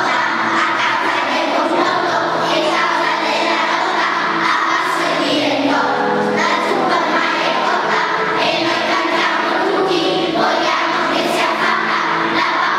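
A large children's choir singing a song together.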